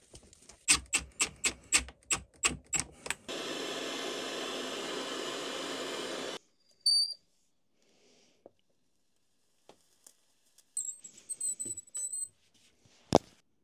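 A hand slapping across a mineral-oil-soaked wooden cutting board, about ten quick pats in three seconds, then a spray can hissing steadily for about three seconds before stopping abruptly. After that come a short high beep, a brief high whine and one sharp click near the end.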